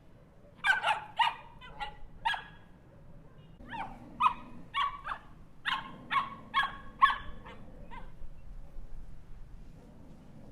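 Small dog barking in two quick runs of short, sharp barks, about five and then about nine, before falling quiet for the last couple of seconds.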